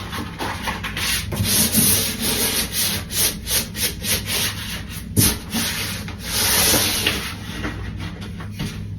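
Repeated back-and-forth scraping or rubbing strokes, several a second, with one sharper knock about five seconds in.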